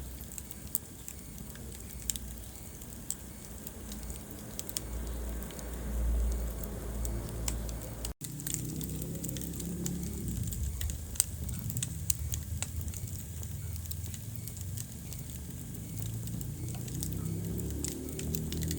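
Wood fire burning in a fireplace: sharp crackles and pops scattered over a low, steady rumble of flames, with a momentary break in the sound about eight seconds in.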